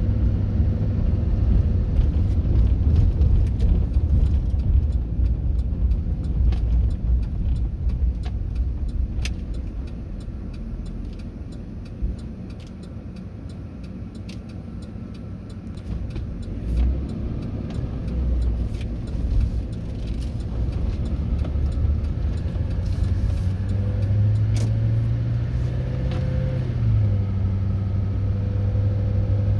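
Car engine and tyre noise heard from inside the car while driving on city streets. The sound drops for a few seconds about halfway as the car slows, then builds again with a rising engine note as it speeds up.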